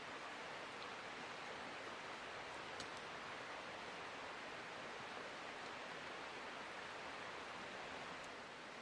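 A steady, even hiss, with a couple of faint light clicks about three seconds in.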